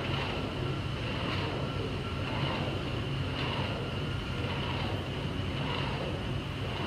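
Steady low machine hum with a high whine above it, from the filament-winding machine turning a large fibreglass tank. A soft swish comes round about once a second as it turns.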